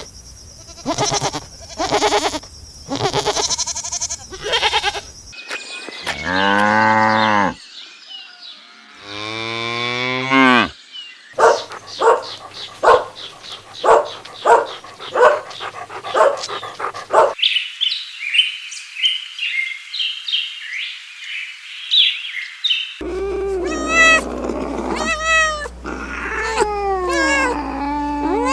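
A string of farm animal calls, one clip after another, with cattle mooing among them. It holds two long low calls about six and nine seconds in, a run of short calls at about two a second, a stretch of high chirping, and long calls sliding up and down near the end.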